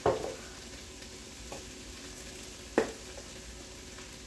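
A spoon stirring vegetables cooking in butter and flour in a pot, over a faint steady sizzle. Two sharp knocks stand out, one at the start and a louder one nearly three seconds in, with a lighter tap between them.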